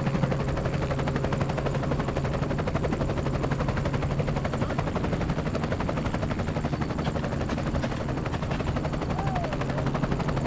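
Helicopter in flight, its rotor chopping steadily with a constant low hum.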